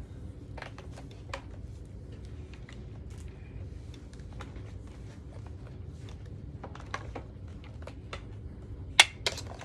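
Scattered light clicks and rustles of a vacuum cleaner's power cord being handled and wrapped onto its cord-wrap hooks, with two sharper clacks near the end.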